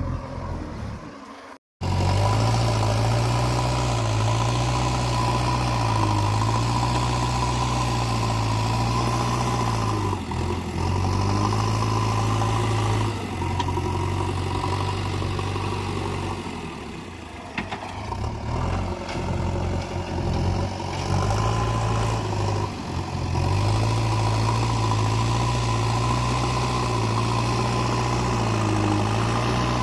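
JCB 3DX backhoe loader's diesel engine running steadily, with its sound dipping and wavering for a few seconds in the middle.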